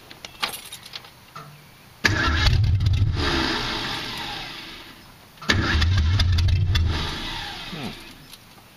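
Ford 289 small-block V8 catching with a sudden burst, running about two seconds and dying away, then catching again a second later and winding down with a falling pitch. A few light clicks come before the first burst. The engine won't keep running just after its Summit carburetor was flooded.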